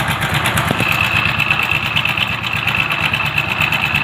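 Motorcycle engine idling with a loud, fast timing chain rattle, like something loose clattering inside the engine; a steady high whine joins about a second in. The noise comes from a slack timing chain whose tensioner arm has broken.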